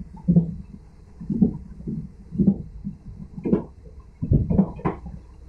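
Train wheels running over rail joints, heard from inside the cab: a dull rhythmic knock about once a second, with a quicker run of three knocks near the end.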